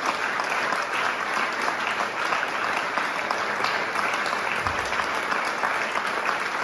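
Audience applauding steadily: dense, even clapping that keeps going without a break.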